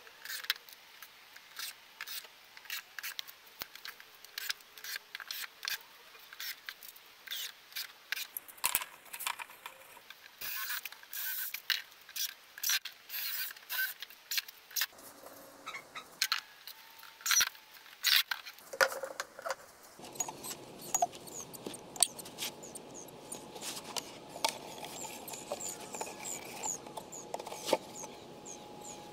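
Quick, irregular clicks and knocks of small metal hinges, screws and wooden parts being handled and fitted on a workbench. About two-thirds of the way in the background switches to a steady outdoor hiss, with faint high chirps and a few more knocks as the wooden table is handled.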